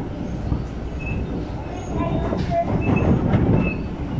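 MTR East Rail MLR electric train running at speed, heard from inside the car: steady rumble of wheels on track. It swells about two seconds in, with brief high wheel squeals.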